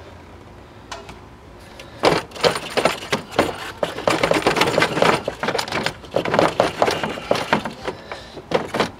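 The plastic air intake duct and rubber hoses under a Ford F-250's hood being gripped, pulled and wiggled by hand: a dense, irregular run of clicks, creaks and rubbing that starts about two seconds in.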